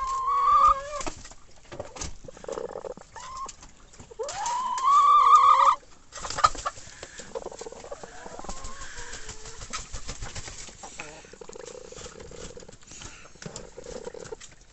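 Chicken making its contented calls, a sound that can be mistaken for snoring. Two loud, drawn-out calls rise in pitch, one at the start and one about four seconds in, and softer low murmuring calls follow.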